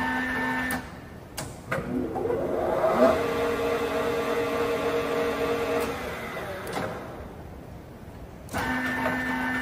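LeBlond Makino Regal Servo Shift engine lathe spindle engaged with a clunk, its gear whine rising as it spins up to 625 RPM, running steadily for about three seconds, then winding down and stopping with a click. A steady machine hum cuts out as the spindle is engaged and comes back near the end.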